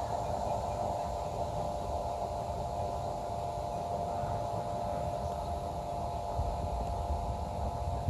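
A steady droning hum holding one clear tone, over a fluctuating low rumble. It is a constant distant industrial noise that the uploader thinks comes from a power plant rather than the railway or highway.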